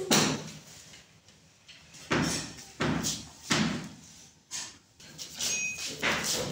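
A series of about five sharp thumps a second or so apart, each dying away quickly.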